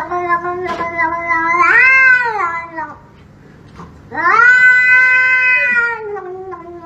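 A domestic cat gives two long, drawn-out meows. The first rises in pitch about two seconds in, then falls away; the second holds a steady pitch and then slides down.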